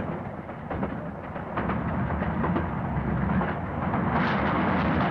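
Steam train running at speed: a heavy, low rumble with rattles and knocks, growing louder about four seconds in.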